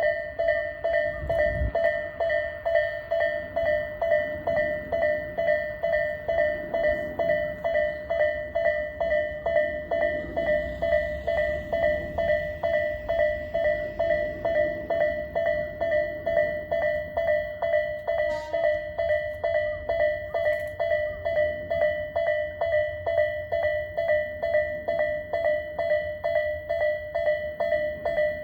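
Japanese railway level-crossing warning bell ringing continuously, a rapid, even electronic ding-ding-ding.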